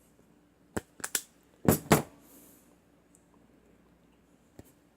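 Handling clicks from a self-adjusting wire stripper being worked with a phone jack wire: a few light clicks, then two louder sharp snaps about two seconds in, and one faint click near the end.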